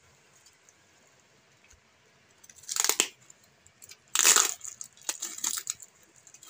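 Brown packing tape being ripped by hand off a cardboard parcel: two loud tearing rips, about three and four seconds in, then several shorter crinkling tears.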